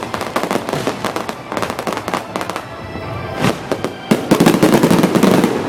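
Fireworks going off in rapid, dense crackling bangs. After a short lull, a louder, dense volley comes about four seconds in.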